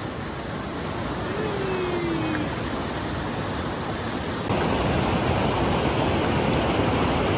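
Fast mountain river rapids: a steady rush of whitewater, stepping up in loudness about four and a half seconds in.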